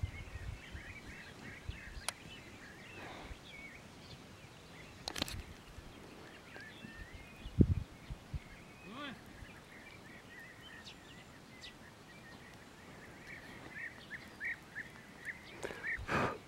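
Quiet outdoor background with birds chirping again and again in short notes, and a few soft knocks and bumps, the loudest about halfway through.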